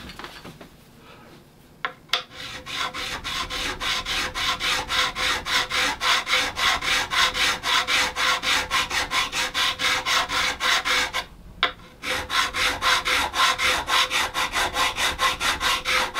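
A Z-file fret-crowning file rasping back and forth across the metal frets of a guitar neck, at about four strokes a second, rounding the flat-levelled frets to a peak. The strokes start about two seconds in, stop briefly past the middle, then go on.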